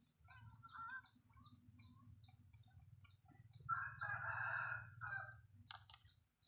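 A rooster crows once, a call about a second and a half long a little past the middle, with a few shorter clucks before it, over faint steady clicking and a low hum.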